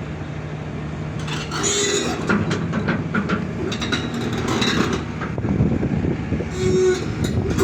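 Heavy machinery, most likely an excavator, running with repeated metallic clanks and rattles over a steady engine hum.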